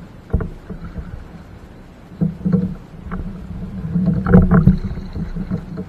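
Fishing kayak being paddled: paddle strokes in the water with separate knocks on the hull, and a loud cluster of knocks and splashes about four seconds in.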